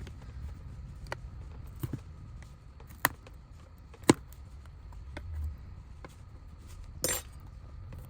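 Sharp clicks and taps of hand tools and small speaker parts being handled during a teardown, five separate knocks with the loudest about four seconds in, and a short scrape about seven seconds in, over a low steady hum.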